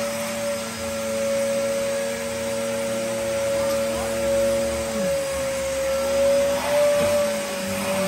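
Upright vacuum cleaner running steadily, its hose wand working over sofa upholstery, with a steady whining hum. The lower part of the hum drops and wavers about five seconds in.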